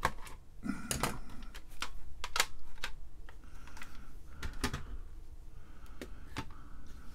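Irregular sharp clicks and taps of a hard plastic calculator case being handled and pried apart, its halves and front bezel coming loose.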